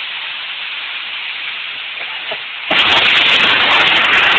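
Steady rain during a thunderstorm. A little under three seconds in, a sudden, much louder crackling hiss takes over and stays.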